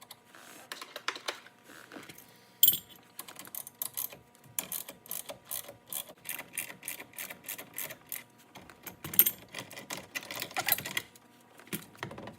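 Irregular clicks, taps and knocks, several a second, with a couple of sharper knocks about three seconds in and near nine seconds, from tools working the stock steering wheel of a 1990 Nissan 300ZX off its column.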